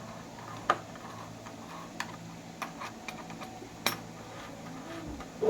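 About five sharp, irregularly spaced metallic clicks and taps of doorknob and latch hardware being handled and fitted.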